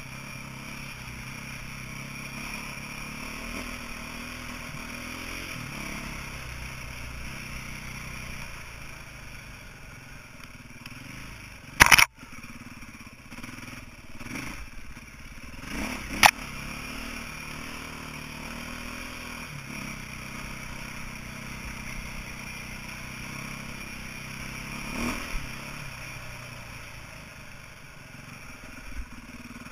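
2008 KTM 450 EXC's single-cylinder four-stroke engine running at low revs, its pitch rising and falling with the throttle. Two sharp knocks come about twelve and sixteen seconds in, a smaller one near twenty-five.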